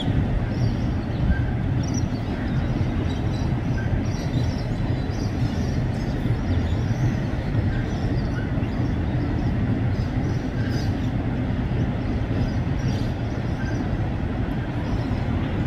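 Container freight train's wagons rolling across a steel truss rail bridge: a steady, continuous rumble of wheels on the rails and bridge deck.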